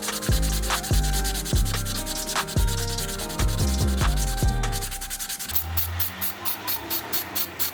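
Sanding by hand, abrasive rubbing strokes over background music with a regular beat. About five and a half seconds in, the music changes to a quick, steady pulsing beat over a held bass note.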